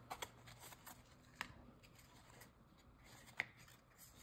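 Faint handling of Topps baseball cards being flipped through one at a time, with a few soft clicks and slides of card stock.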